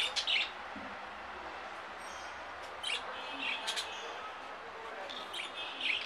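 Pet budgerigars chirping: short, high chirps come in three brief clusters, near the start, about halfway through and near the end, over a steady background hiss.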